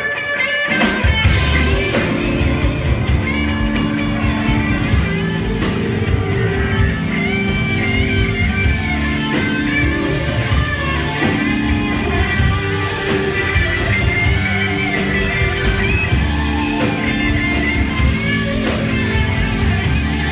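Live rock band playing an instrumental passage at full volume: a bending lead electric guitar line over bass, drums and keyboards. The band drops out for a moment right at the start, then comes back in with a hit.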